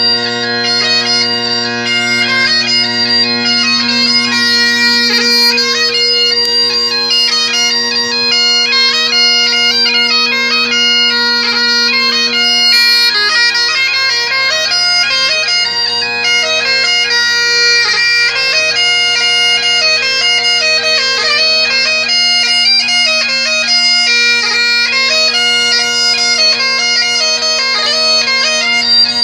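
Highland bagpipes playing a tune: a quick chanter melody over the steady hum of the drones. The drones grow fainter from about halfway through and come back strongly near the end.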